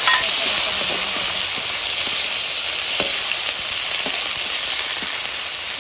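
Chopped tomatoes frying in hot oil in a metal kadai, a steady sizzling hiss, with a few light clicks of a spatula stirring them.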